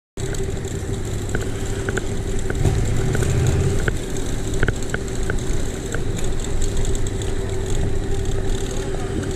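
Police motorcycle running slowly just ahead with a steady engine tone. Under it are low rumble and scattered small clicks from a bicycle rolling over cobblestones.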